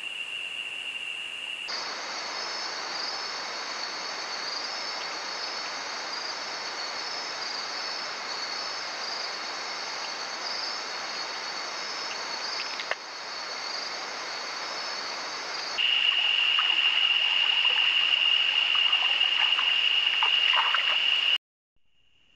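Rainforest insects chirring: a steady high buzz with a fast pulsing chirp over it, giving way about two-thirds of the way through to a louder, steady high-pitched whine that cuts off suddenly near the end.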